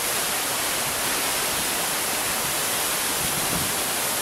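A roughly 30-foot mountain waterfall rushing steadily, an even hiss of falling water.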